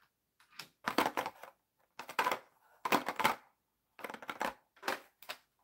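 Hot Wheels plastic blister package on its card being handled, crackling and crinkling in about seven short bursts.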